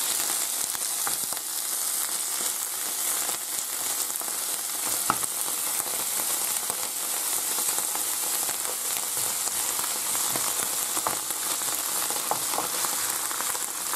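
Sliced mushrooms and anchovies sizzling steadily in hot olive oil in a non-stick frying pan while being stirred with a wooden spoon, with a few light clicks now and then.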